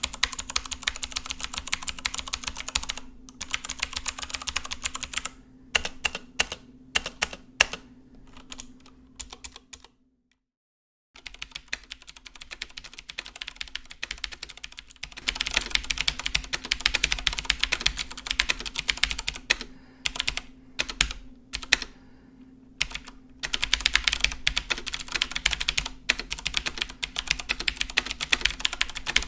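Fast typing on a Cooler Master mechanical keyboard with clicky blue switches, in runs of rapid keystrokes broken by short pauses. About a third of the way in the sound cuts out completely for about a second, then the typing resumes.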